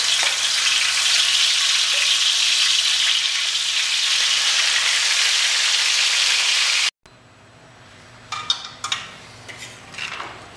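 Marinated chicken sizzling loudly in hot oil in a kadhai. About seven seconds in the sizzling stops abruptly, and a metal spatula scrapes and clanks against the pan a few times as the chicken is stirred.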